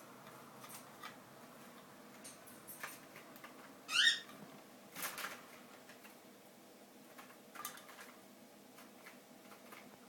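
A pet animal gives a short, rising squeak about four seconds in, followed a second later by a softer noisy huff, with faint scattered clicks and scratches around them.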